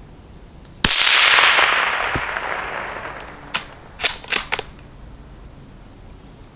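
A single suppressed .17 HMR rifle shot: a sharp crack followed by a long echo fading through the trees over about two seconds. A few sharp clicks follow in quick succession about three seconds later.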